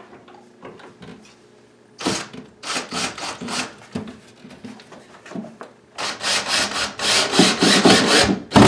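Cordless drill driving screws through the back of a wall cabinet into the wall studs, the screws grinding and rubbing into the wood. It comes in two runs: a short one about two seconds in and a longer, louder one from about six seconds on.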